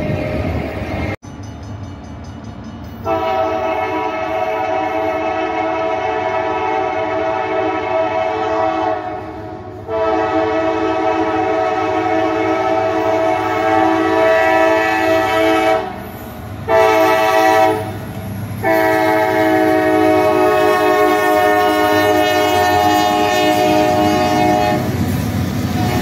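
Norfolk Southern diesel freight locomotives' multi-note air horn sounding the grade-crossing signal: two long blasts, one short and one long, over the steady low rumble of the engines as the train approaches and passes.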